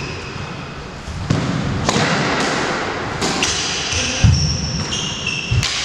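Squash rally: the ball smacked by rackets and hitting the walls with several sharp knocks, and rubber-soled court shoes squeaking briefly on the wooden floor, the squeaks clustering in the second half.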